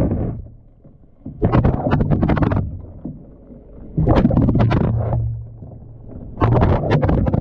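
Water sloshing and churning in a washing machine drum as it agitates, rising and falling in surges about every two and a half seconds over a low motor hum.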